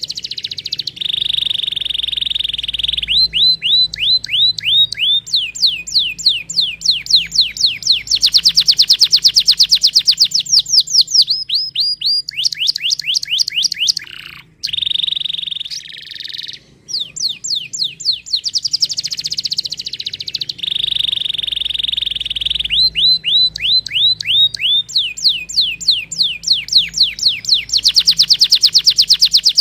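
Domestic canary singing: fast trills of repeated downward-sweeping notes alternate with steady, high buzzing rolls, with a short break about halfway through.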